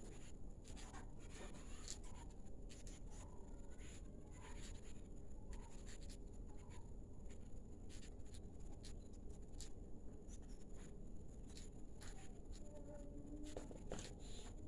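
Cockatiels pecking and scratching: faint irregular clicks and scrapes, with a steady faint high whine throughout.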